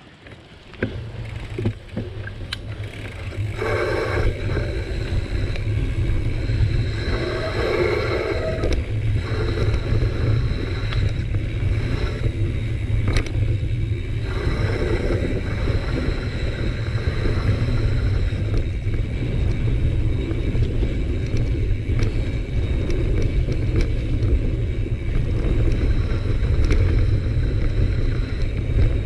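Wind rushing over the camera microphone as a steady low rumble while a mountain bike rolls down a packed-dirt trail, with tyre noise and scattered sharp clicks and rattles from the bike.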